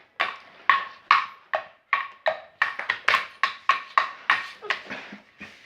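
Hands clapping or slapping in a quick irregular rhythm, about three sharp claps a second, with a slight ring after each.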